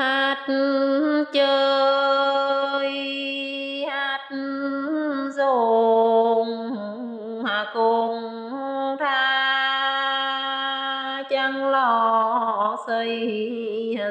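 A woman's voice singing a Muong folk song (đang Mường) unaccompanied, in long drawn-out held notes over several phrases, each ending in wavering ornaments before a short breath.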